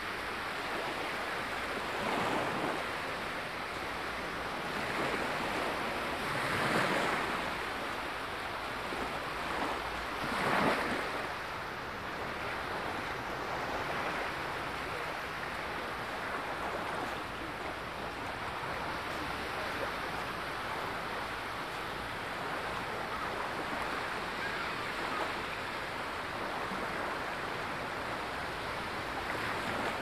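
Small sea waves lapping and washing up onto a sandy shore, a steady wash of surf that swells with each break. The loudest break comes about ten seconds in.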